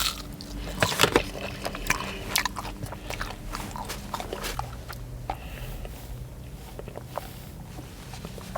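A person chewing a fried mozzarella stick close to the microphone: irregular crunches and wet mouth clicks, busiest in the first few seconds and thinning out after.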